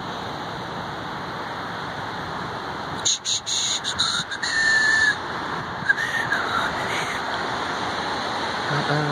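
Steady rushing wash of ocean surf and wind, with a louder burst of hiss about three seconds in and a few short rising-and-falling bird calls soon after.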